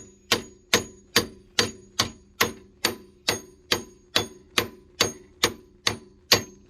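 Hammer striking wheel studs to knock them out of a worn front hub bearing, steel on steel: a steady series of about sixteen evenly spaced blows, a little over two a second, each with a short metallic ring.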